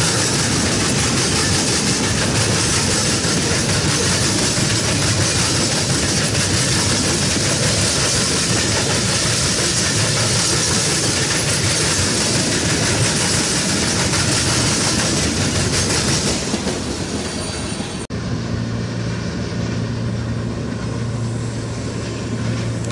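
Freight train tank cars rolling past close by: a steady loud rush of steel wheels on the rails. About 18 seconds in the sound cuts to a quieter, more distant train with a low steady hum.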